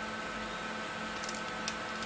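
A couple of faint clicks from laptop parts being handled as the motherboard is lifted out, over a steady background hum and hiss.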